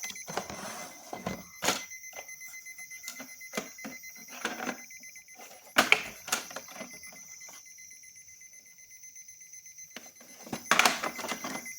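Digital alarm clock sounding faintly with a steady electronic beep tone, while it sits wet inside an ultrasonic mist chamber. Scattered clicks and knocks from the clock and container being handled are heard, with a louder clatter near the end.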